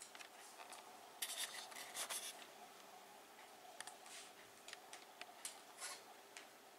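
Faint scraping and clicking of a small pair of pliers worked against a wall, with a cluster of louder scrapes about a second in.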